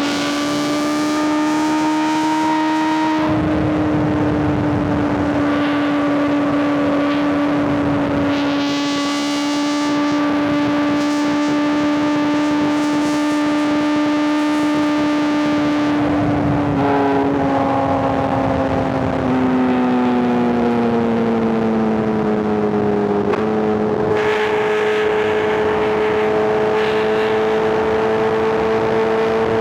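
Superbike inline-four engine running at steady cruising revs, with wind rushing past. About two-thirds of the way through the note changes and the revs fall away for a few seconds. A sudden step up in pitch, typical of a downshift, follows, and the engine then holds a steady, slowly rising note.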